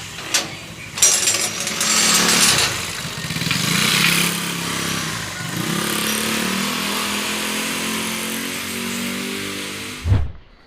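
A 200cc motorcycle engine starting about a second in and revving up and down, then running steadily. It cuts off suddenly near the end after a thump.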